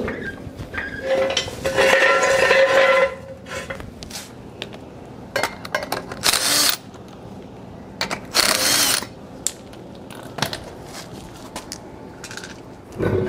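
Lug nuts being worked off a truck's front wheel with a wrench: three bursts of mechanical ratcheting and metal rattling, each a second or two long.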